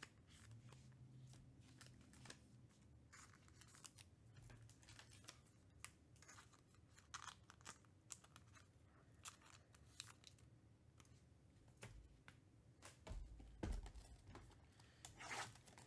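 Near silence with faint scattered clicks and rustles of trading cards and packaging being handled. Near the end comes a soft thump as a sealed card box is picked up, followed by louder crinkling of its plastic wrap.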